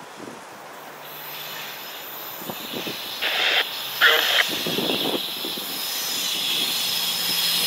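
Approaching freight train led by GE C40-9W (Dash 9) diesel locomotives, its noise growing steadily louder as it nears, with two short louder sounds about three and four seconds in.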